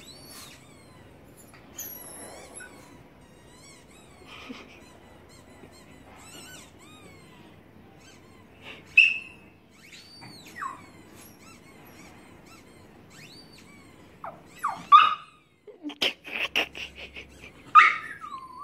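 A small dog, a Chihuahua, whining in short high cries that rise and fall, scattered at first, then faster and louder over the last few seconds.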